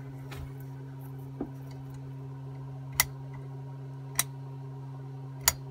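A table lamp's switch clicked three times, sharp and well spaced, over a steady low electrical hum.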